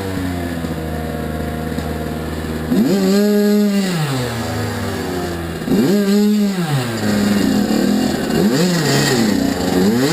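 Kawasaki KX85 two-stroke dirt bike engine revving up and down while being ridden. The pitch drops off at first and holds low for a couple of seconds, then comes two strong revs about three seconds apart, followed by several shorter throttle blips near the end.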